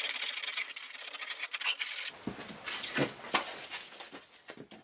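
Sandpaper rubbed by hand over the rounded corners of a small wooden box in quick back-and-forth strokes for about two seconds. The sanding stops abruptly, followed by quieter rubbing and a few light taps of wood on the workbench.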